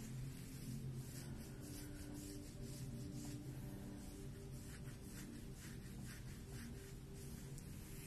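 Fingernails scratching and fingers running through long hair at the scalp: a run of soft, hissy rustling strokes.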